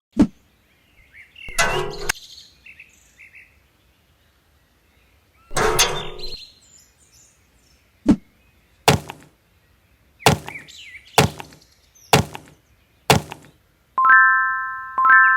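A series of sharp knocks, about one a second in the second half, after two longer rough noises. Near the end comes a ringing chime, struck twice.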